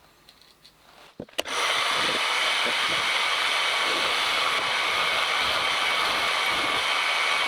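Milling machine's spindle motor switched on with a click about a second and a half in, then running at a steady speed with an even whirring noise and a high whine.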